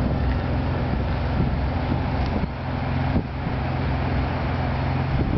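Steady low engine-like hum under a constant wash of noise, like a motor vehicle running nearby.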